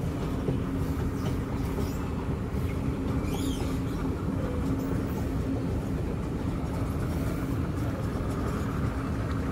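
Mall escalator machinery running under a rider: a steady low mechanical rumble with one constant hum.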